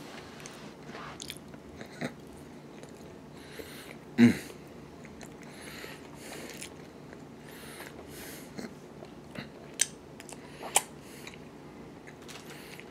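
A person chewing and biting barbecue chicken close to the microphone, with wet, soft crunching mouth noises. A short, loud voiced sound comes about four seconds in, and two sharp clicks come near the end.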